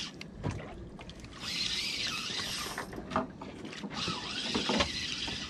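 Hissing wash of sea water around a small boat, swelling twice, with a few light knocks in between.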